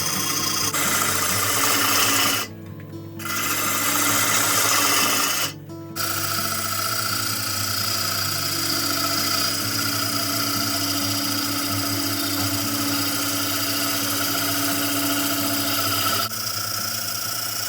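Woodturning gouge cutting oak on a Record Power Coronet Regent lathe, a steady hissing rasp of the tool shearing the spinning wood, with background music underneath. The cutting sound drops out briefly twice in the first six seconds.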